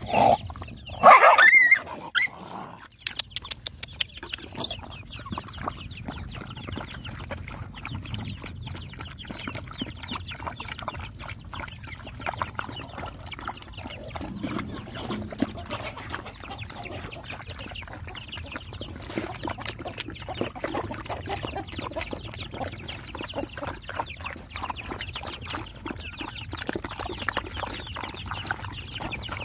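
Several dogs lapping and chewing wet food from a shared bowl, a dense run of small wet clicks and slurps, with a loud, short animal call about a second in.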